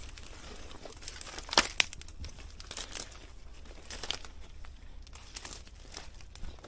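Footsteps pushing through overgrown grass and brush: irregular rustling and crackling, with a couple of sharper snaps about a second and a half in.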